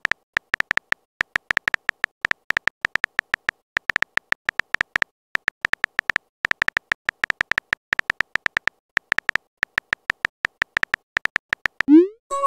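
Keyboard-tap sound effect of a texting-story app, a rapid, irregular run of short, high clicks, one per letter, as a message is typed out. Near the end a quick rising swoop sounds as the message is sent.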